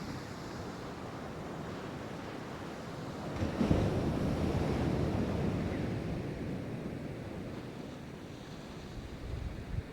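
Pacific Ocean surf: a wave breaks about three and a half seconds in, its wash rising suddenly and then fading slowly over the next few seconds, over a steady background of surf and some wind on the microphone.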